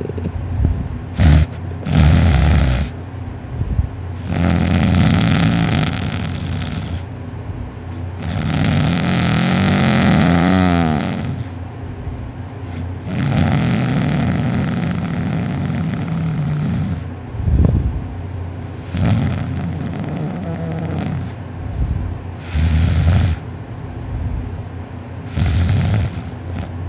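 A man snoring heavily in deep sleep, a loud rasping snore on breath after breath, about seven in all, each lasting one to four seconds; the sleeper likens it to a lawn mower.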